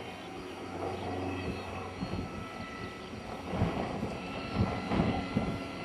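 Electric motors and propellers of radio-controlled AXN Floater foam planes flying overhead, a steady high whine, with gusty wind buffeting the microphone.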